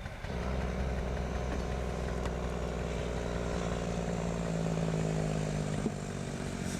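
A vehicle engine running steadily at an even pitch, beginning abruptly a moment in.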